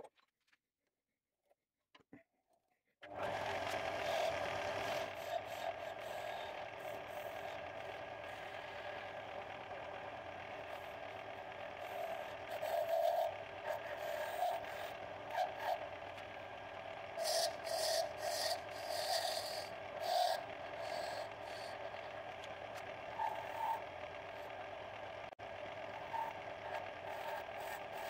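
A wood lathe starts up about three seconds in and runs steadily with a humming tone. A hand-held turning chisel scrapes and cuts the spinning wooden knob in repeated passes, loudest in a run of bursts around the middle.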